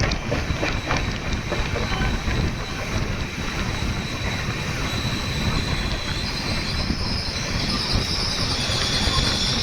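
Indian Railways passenger train running on the track with a steady rumble. About halfway through, a high steady wheel squeal builds up and grows louder toward the end.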